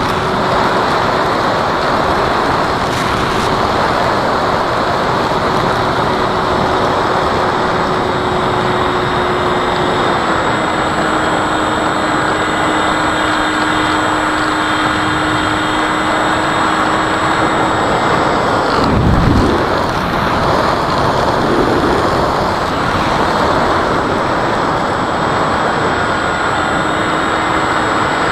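Steady rush of wind noise with the thin whine of an FMS Cessna RC model plane's electric motor in flight; the motor's pitch steps down slightly about a third of the way through. A brief deeper whoosh comes about two-thirds of the way in.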